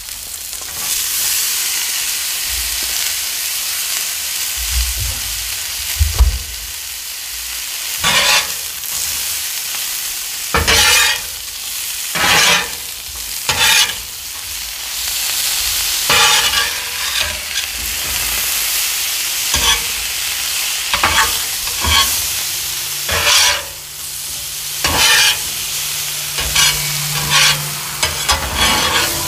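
Sliced potatoes, onions and green peppers sizzling on the steel cooktop of a 30-inch Blackstone griddle, with a metal spatula scraping and flipping them across the steel again and again.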